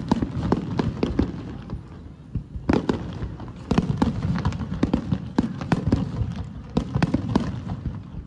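Aerial fireworks bursting in quick, irregular succession: dozens of sharp bangs over a low rumble, with a brief lull about two seconds in.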